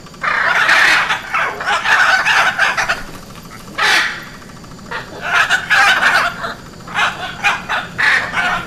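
Hyacinth macaws calling: a run of about six harsh squawks, some drawn out and some short, with brief pauses between.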